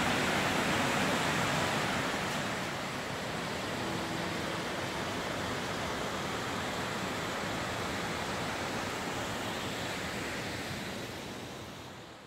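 Steady rushing of flowing water, even and unbroken, fading out near the end.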